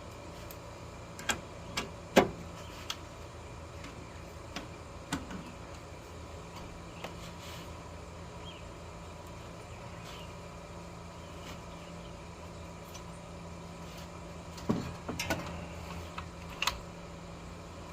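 Scattered clicks and knocks of hand tools and metal parts being handled while working on a car's A/C compressor and belt, the sharpest about two seconds in and a cluster near the end, over a steady low hum.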